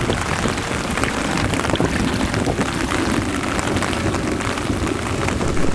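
Steady rain falling on open water: a dense patter of drops on the surface, with wind buffeting the microphone.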